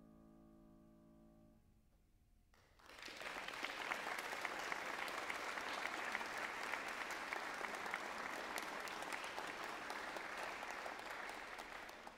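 The last chord of a Steinway concert grand piano dies away, and after about a second of hush an audience breaks into applause that holds steady to the end.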